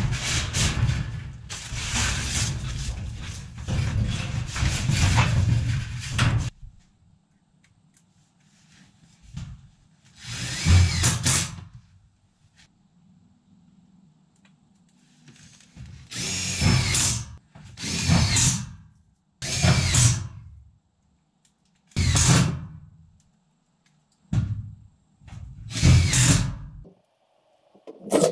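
Power drill driving screws through corrugated sheet-metal wall panels: one long run of about six seconds, then a string of short bursts of a second or less, the motor's pitch rising and falling on each.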